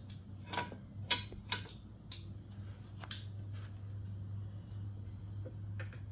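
Scattered sharp plastic clicks and taps from a toy car jack and jack stands being handled and adjusted, over a steady low hum.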